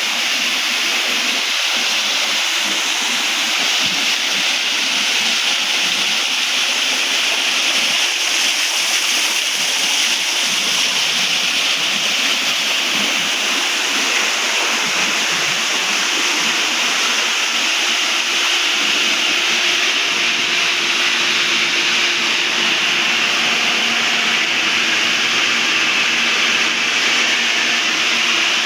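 Water pouring steadily from a swimming pool's waterfall feature and splashing into the pool, a constant hiss.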